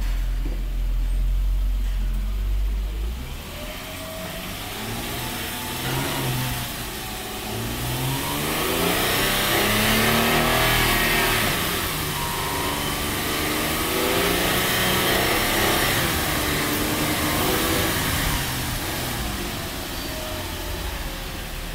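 2008 Mercedes-Benz E-Class engine and drivetrain running on a test, the raised rear wheel spinning in gear. It hums low at first, then speeds up to a peak about ten seconds in, eases off, speeds up again and falls back near the end, with a hiss that rises and falls with the speed.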